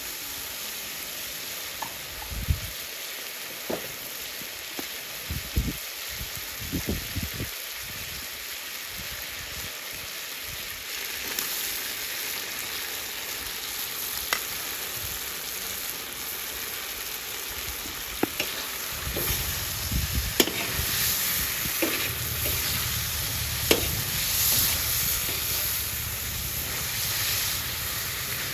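Beef chunks sizzling in hot oil in a wide black saj pan, the sizzle growing louder about halfway through as sliced mushrooms go in. Scattered clicks and knocks of a metal skimmer stirring against the pan, more of them in the second half.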